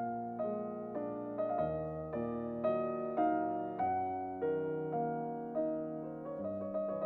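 Background piano music: a slow, gentle melody, with a note or chord struck about every half second and left to ring into the next.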